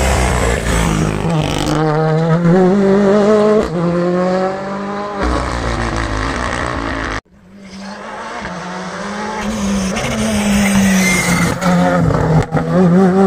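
Rally car engines at full throttle, one car and then a second, each revving up hard through the gears with a quick drop in pitch at every shift. The sound cuts off suddenly about seven seconds in and builds again as the second car comes through the corner.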